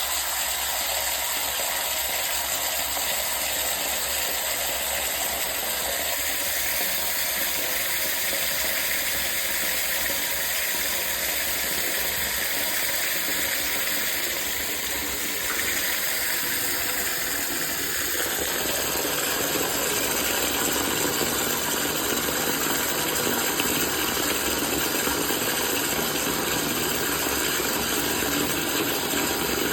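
Water running steadily from a faucet, a continuous hiss of the stream. About halfway through the sound fills out lower and grows a little louder.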